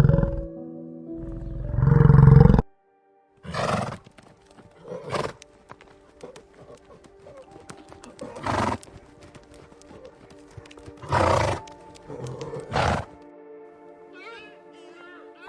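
Recorded animal calls over steady background music: a loud low roar at the start and again about two seconds in, then five shorter calls spread through the rest.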